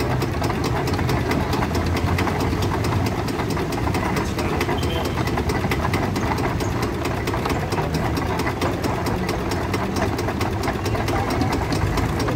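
Old diesel tractor engine running steadily with a regular, even knocking beat, driving a belt-powered apple mill from its pulley.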